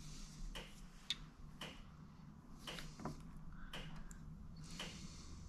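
Faint, steady ticking of a clock, about two ticks a second, over quiet room tone.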